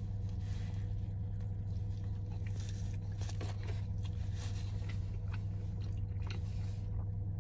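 A man biting into a soft steamed pork belly bao bun and chewing it, the mouth sounds faint, over a steady low hum.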